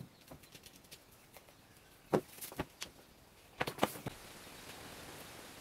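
A few sharp clicks and light knocks as a coiled rubber air hose and its fittings are handled, the loudest about two seconds in and a cluster near four seconds, followed by a faint steady hiss.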